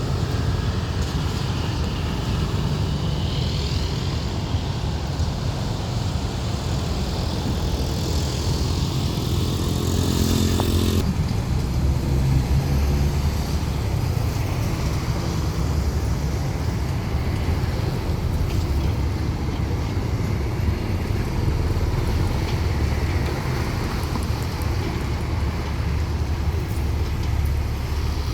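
Diesel engines of heavy earthmoving machinery (grader, bulldozer or road roller) running steadily under work. The sound changes abruptly about eleven seconds in.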